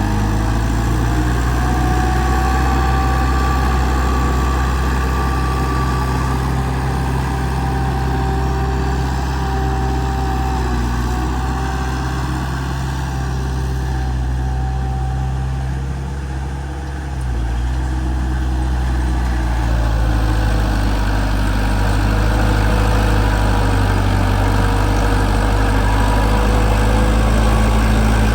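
Heavy diesel earthmoving machinery, a bulldozer or dump truck, running steadily with a low engine drone. About two-thirds of the way through it dips briefly, then the engine note changes and grows a little louder.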